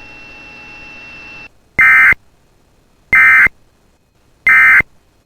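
Emergency Alert System end-of-message signal: three short, identical bursts of buzzing digital data tones, about a second apart, marking the end of the alert. Before them, a faint steady hum with a thin high tone lasts about a second and a half.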